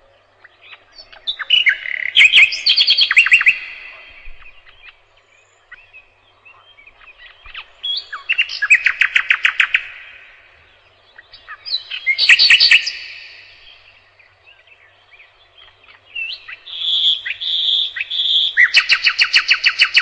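Nightingale singing: loud phrases of fast repeated notes with pauses of a few seconds between them. Near the end come three drawn-out whistled notes, then a fast rattling trill that carries on.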